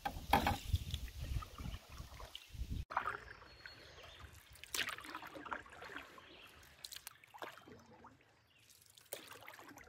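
Canoe paddling on calm water: paddle blades dipping and pulling, with water trickling and dripping off them between strokes. A low rumble fills the first three seconds, then the sound drops to scattered light splashes and drips.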